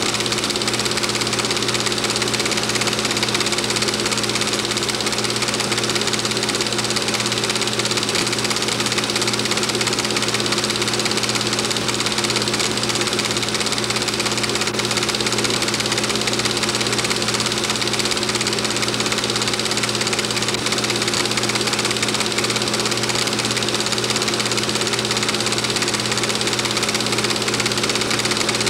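Film projector running: a steady, unchanging mechanical hum.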